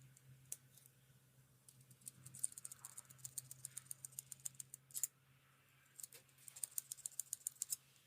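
Two quick runs of small, sharp clicks, about eight to ten a second, with a single louder click between them, and a faint low hum fading away in the first seconds.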